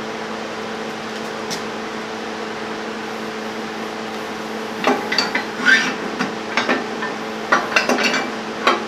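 Steel-on-steel clanks and clinks as the half-inch steel backhoe thumb and its bracket are handled, a cluster of short knocks starting about five seconds in, over a steady hum.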